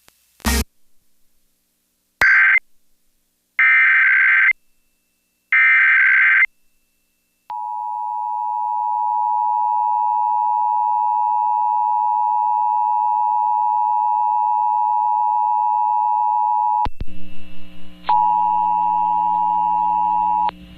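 Emergency Alert System signalling: three short bursts of screeching SAME digital header data about two seconds apart, then the EAS two-tone attention signal (853 and 960 Hz together), a steady beeping drone held for about thirteen seconds. About 17 s in, a low hum and buzz comes in under the tone, which breaks briefly once and stops just before the end.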